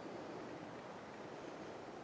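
Faint, steady outdoor ambience with wind noise on the microphone.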